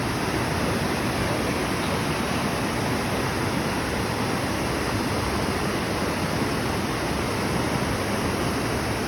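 Steady, loud rush of moving water, an even roar with no breaks or distinct wave surges.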